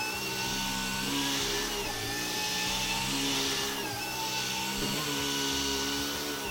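Vacuum cleaner running, its motor whine dipping and rising slightly in pitch as the suction hiss swells and fades with each stroke. Soft background music plays under it.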